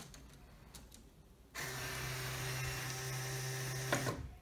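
LEGO Mindstorms EV3 robot's electric motor and gear train whining steadily for about two and a half seconds as it drives the parallelogram-linkage arm down, starting about one and a half seconds in and stopping with a sharp click. Faint clicks come before the motor starts.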